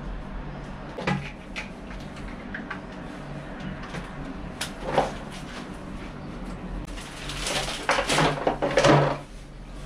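Scattered knocks and clicks of hand work on toilet cistern fittings, then about two seconds of louder rustling and clattering near the end, over a steady low hum.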